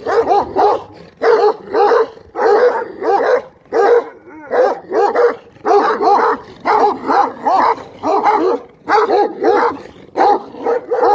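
A dog barking over and over in quick runs of two or three short, high barks, with a brief pause about four seconds in.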